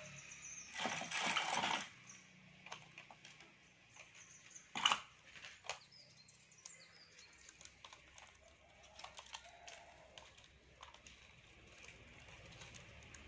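Handling noise from an old step-up transformer and its wires being moved by hand: a rustling scrape about a second in, a single sharp knock near the middle, then scattered light clicks and rustles.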